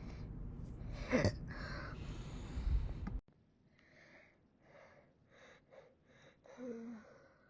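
A woman hiccuping: a sharp hiccup about a second in over a steady noisy background that cuts off suddenly, then soft breaths and a short voiced hiccup near the end.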